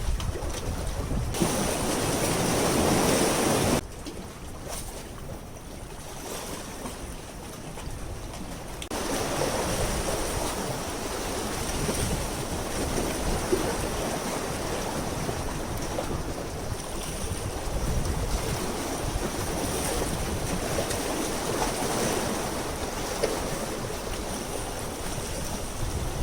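Sea wind buffeting the microphone over the wash of waves against the harbour, a steady rushing noise that jumps abruptly in level a few times, about a second and a half, four seconds and nine seconds in.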